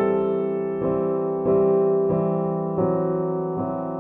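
Background music: slow, ringing chords, a new one struck a little under once a second, each fading as it rings.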